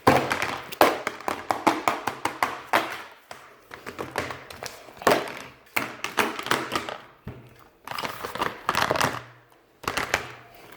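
Slime being squeezed and kneaded by hand close to the microphone: rapid sticky clicks and pops in clusters with short pauses between.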